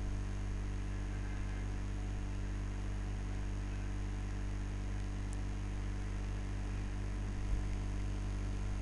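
Steady low electrical hum over a faint even hiss, the background noise of a voice-over recording setup between narrated lines, with a faint click about five seconds in.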